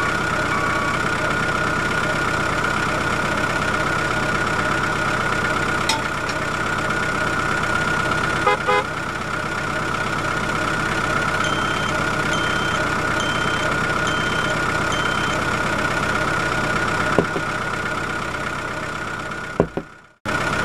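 Steady vehicle engine idling, with a run of five short, evenly spaced high beeps about halfway through and a few light clicks. The sound drops out briefly near the end.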